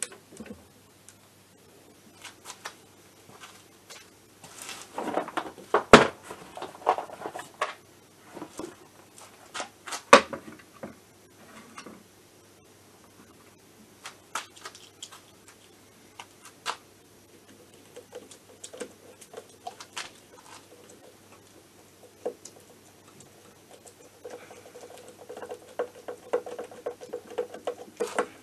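Hand work on a scooter engine's crankcase: scattered clicks, taps and rustling as the starter wiring and small parts are handled, with two sharper clacks about six and ten seconds in and a longer spell of rustling near the end.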